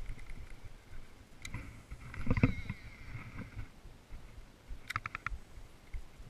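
Fishing rod and reel handled close to the microphone: uneven knocks and rumbles, a louder cluster of thumps about halfway through the first half, a single sharp click earlier, and a quick run of about five clicks a little before five seconds.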